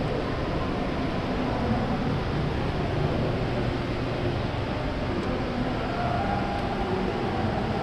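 Steady background noise of a large hotel atrium: a constant even hiss with a low rumble underneath and no distinct events.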